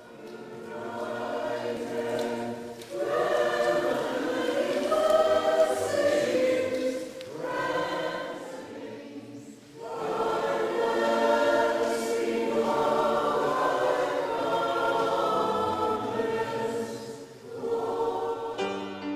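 A choir singing in long held phrases, with short breaks between phrases.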